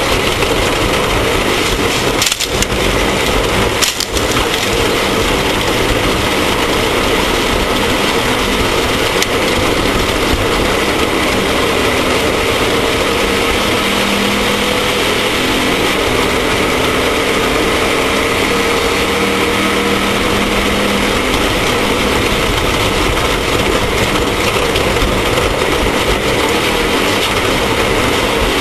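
Off-road race vehicle running hard: a loud, steady wash of engine noise mixed with rattling, with two brief dips in level a few seconds in.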